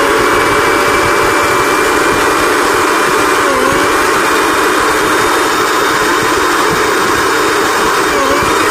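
Flipkart SmartBuy mixer grinder running at full speed on its newly fitted motor, a steady high whine over a loud whirring rush, with the pitch dipping briefly twice, about three and a half seconds in and near the end. It is running properly now that the faulty motor has been replaced.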